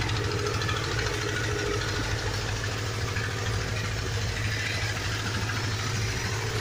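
An engine idling steadily, a low hum with a fast even pulse.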